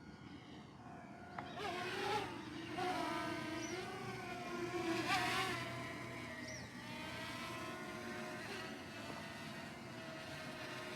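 DJI Mini 2 quadcopter's propellers buzzing as it flies and manoeuvres, the pitch wavering up and down with the throttle. It is loudest about five seconds in.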